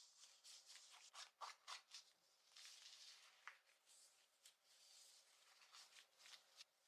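Clothing fabric being scratched, quietly: a quick series of short scratches, with a longer rubbing stretch about two and a half seconds in.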